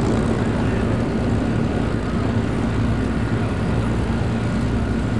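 Propeller aircraft engine running, a steady drone.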